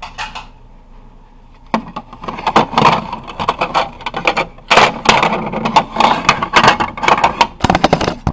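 Loud rubbing, scraping and knocking from the camera being handled and moved right at its microphone, starting about two seconds in.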